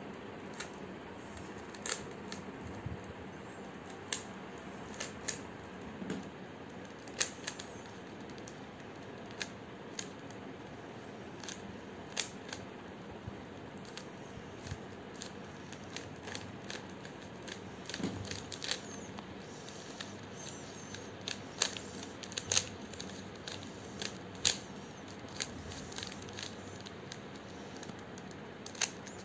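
A 3x3 Rubik's cube being turned by hand during a solve: irregular plastic clicks and clacks as its layers rotate, coming singly and in short clusters over a steady background hiss.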